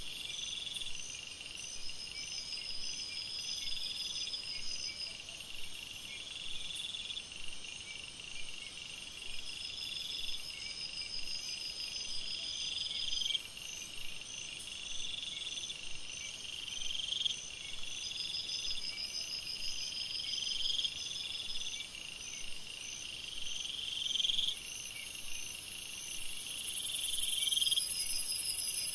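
Night chorus of crickets and other insects: several overlapping high chirping calls, one swelling phrase repeating about every three seconds. About 25 seconds in, a higher steady buzz joins and the chorus gets louder.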